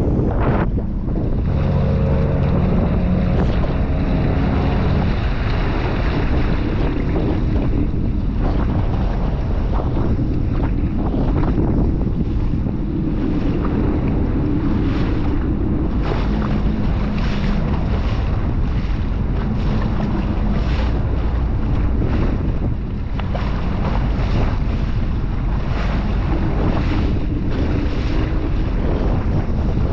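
Wind buffeting the microphone over water splashing and the low drone of a Sea-Doo Spark jet ski, with short splashes throughout.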